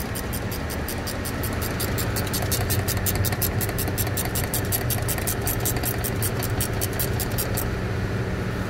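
Hand ratchet clicking fast and evenly, about six clicks a second, as it backs out a rear brake caliper slide-pin bolt; the clicking stops shortly before the end. A steady low hum runs underneath.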